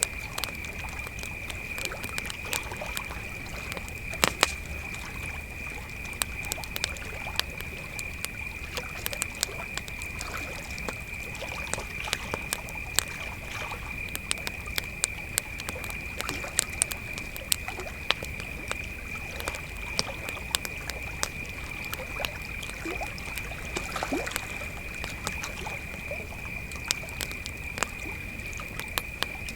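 Campfire crackling with irregular sharp pops, over a steady chorus of crickets chirring at one high pitch.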